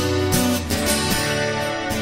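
Background song with guitar, an instrumental passage between sung lines.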